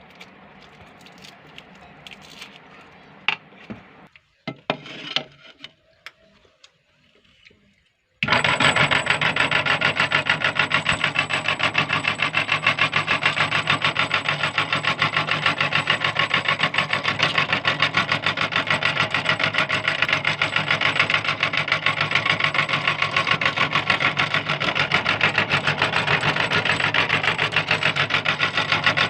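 A few small clicks and taps, then about eight seconds in an electric meat grinder switches on and runs steadily, grinding hard lollipop candy with a fast, even churning and a thin high whine.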